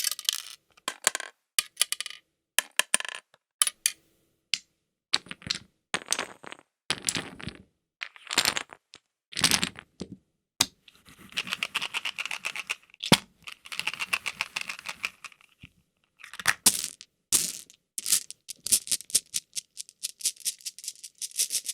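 Board game sound effects: a run of separate sharp clicks and clacks of small game pieces, with a longer spell of continuous rattling from about eleven to fifteen seconds in and quicker clicking near the end.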